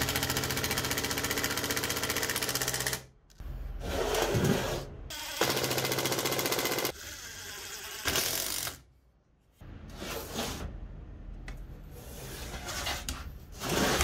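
A cordless power driver running in several bursts, a fast rattling buzz as it drives screws into a steel bracket on a wooden base. The longest run is about three seconds at the start, followed by three shorter runs, then quieter handling noise.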